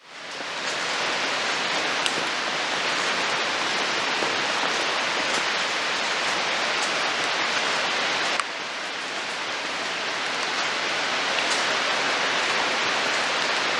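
Steady rain hissing down. The level drops suddenly about eight seconds in, then slowly builds back.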